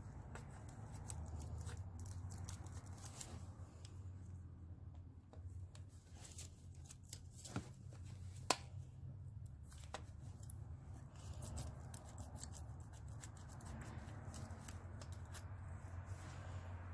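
Faint handling noise: scattered light clicks and rustles over a steady low hum, with two sharper clicks around the middle.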